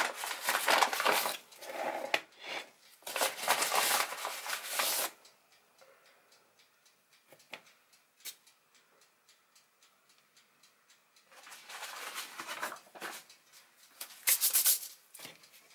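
Flour being scattered and brushed across a granite countertop by a hand in a rubber glove: rustling, brushing bursts, a quiet pause with a few faint clicks in the middle, then more brushing near the end.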